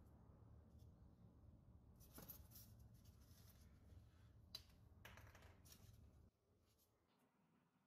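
Near silence: faint rustling as a rusted metal sword crossguard is handled and set on a Styrofoam block, with one sharp click about halfway through. A low hum in the background cuts off about six seconds in.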